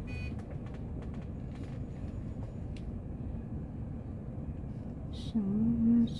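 Steady low rumble of city street traffic and background noise, with a few faint clicks. About five seconds in, a person's voice starts up over it.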